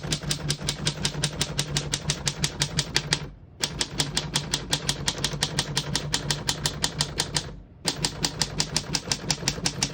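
1941 Corona Comet De Luxe portable typewriter struck rapidly and evenly, about eight clacks a second, in three runs with two short breaks, as the carriage steps across the line from the left margin toward the right.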